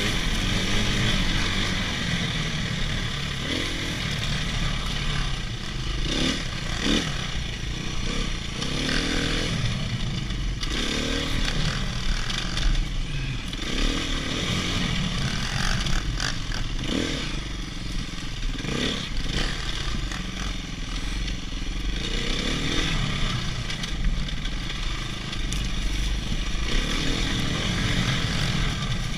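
Dirt bike engine revving up and down repeatedly while riding a rough trail, its pitch rising and falling every second or two, with rattling clatter from the ride.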